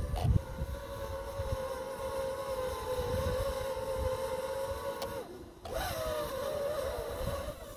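DJI FPV drone's propellers whining at a steady pitch. A little after five seconds the whine cuts out for about half a second, then returns with a wavering pitch. Low wind rumble is on the microphone near the start.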